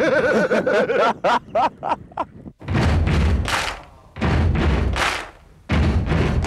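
A man laughing for about two seconds. Then, from about two and a half seconds in, three loud sound-effect hits about a second long each, every one a deep thud under a rushing noise.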